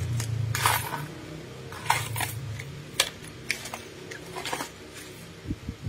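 Handling noise of plastic food packs in a plastic basket: rustling and light clicks and taps, with a sharp click about three seconds in and two soft thumps near the end, over a low steady hum.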